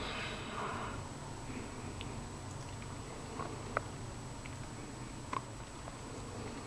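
Squirrel gnawing sunflower seeds out of a sunflower head: a few sharp clicks of shells cracking, spaced a second or more apart, over a faint steady background hiss.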